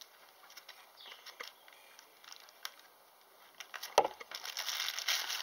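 Clear plastic bag crinkling as it is handled, with faint scattered rustles at first, a sharp knock about four seconds in, then denser crinkling.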